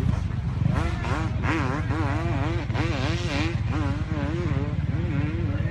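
Dirt bike engine revving up and down in quick repeated throttle blips, its pitch rising and falling about two or three times a second.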